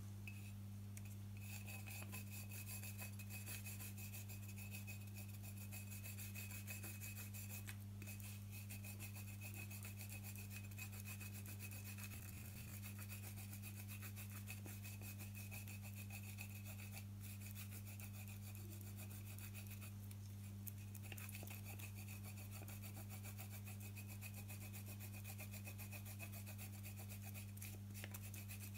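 A bar of frozen white chocolate grated on a handheld stainless-steel grater: quick, repeated rasping strokes with a few short pauses, over a steady low hum.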